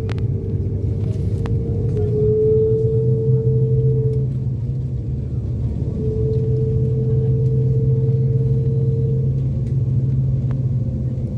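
Jet airliner taxiing, heard from inside the cabin: a steady low rumble from the engines at taxi power, with a higher steady hum that comes in twice for a few seconds.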